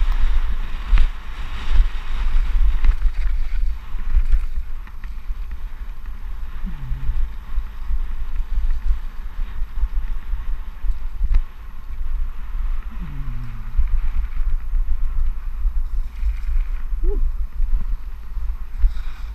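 Wind buffeting the microphone of a helmet-mounted camera on a fast mountain-bike descent, a heavy low rumble throughout, with the hiss and rattle of the bike running over a dirt trail. A faint short falling tone is heard twice.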